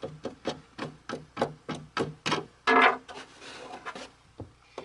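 Plastic taillight assembly and its fasteners being handled by hand: a quick run of clicks and knocks, then a louder rubbing scrape nearly three seconds in.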